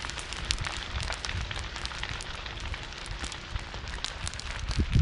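Vegetation fire burning on a lot: a steady hiss with many sharp crackles over a low rumble.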